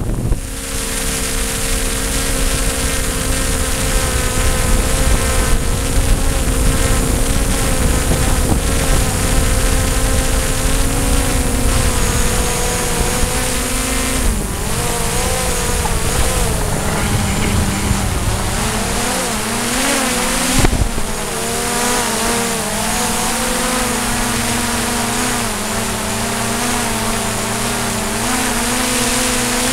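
DJI Mavic drone's propellers and motors whining steadily in flight. About halfway through the pitch wavers up and down for several seconds as the motors change speed, then evens out.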